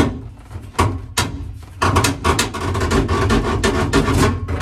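Metal package tray being worked loose by hand, knocking and scraping against the car body: a sharp knock at the start, two more about a second in, then nearly three seconds of rapid rattling and scraping.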